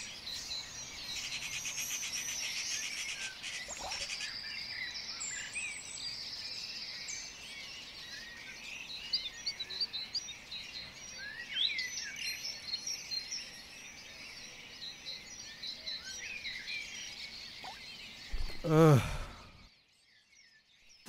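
Many small birds chirping and calling together, a dense chorus of short high calls. Near the end a man's voice sounds once, briefly and loudly.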